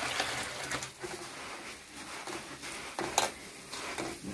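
Water poured over puffed rice (murmura) in a steel plate, then hands mixing and squeezing the wet puffed rice to wash it: a steady splashing pour about the first second, then soft squishing and rustling with a few sharper scrapes, the clearest about three seconds in.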